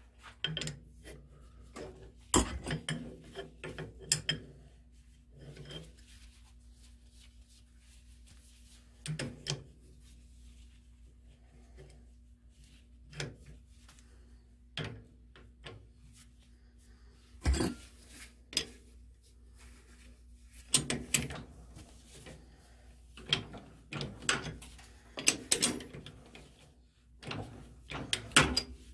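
Irregular metallic clicks and clunks of hand tools on a lathe as a threading die is started by hand on a steel rod: a handle on the tailstock die holder and the chuck key being worked, with a denser run of knocks near the end. A faint steady hum runs underneath.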